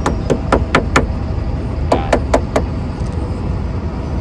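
Pliers tapping rubber door-edge trim, with its metal core, onto the edge of a car door. There is a quick run of sharp knocks about five a second, then after a pause of about a second, four more.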